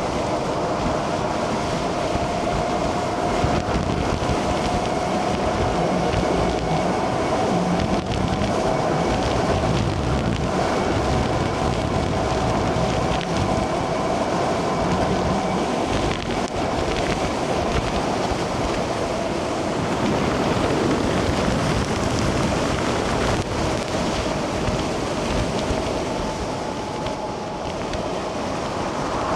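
Wind buffeting the microphone and tyre rumble from an E-Cells electric bike on the move, over a steady whine from its electric motor that drifts slightly in pitch.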